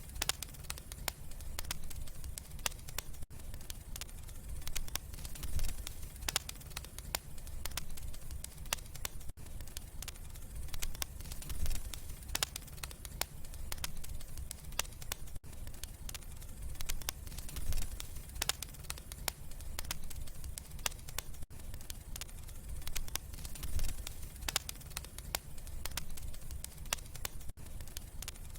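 Wood fire in a fireplace crackling, with many small sharp pops and snaps over a steady low rumble of the flames.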